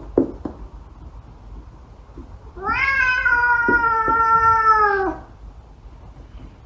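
A cat gives one long, drawn-out meow, about two and a half seconds long, starting a little under three seconds in. Its pitch rises at first and then slowly sinks until it stops.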